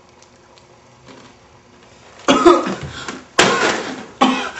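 A person's loud, sudden vocal outbursts, two of them about a second apart, after a quiet start.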